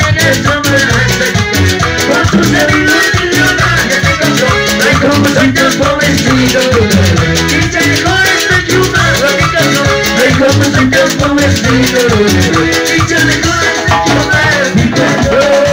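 A Latin dance band playing loudly, with dense percussion over a steady beat and melody lines.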